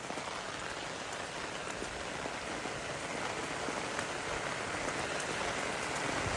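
Heavy rain falling steadily: a dense, even hiss with scattered drop ticks, growing slightly louder toward the end.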